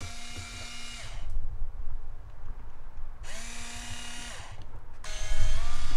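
Small electric pump of a bug-killer jug's spray wand, whining in three short bursts of about a second each. On each trigger press the pump spins up, then winds down when it is let go.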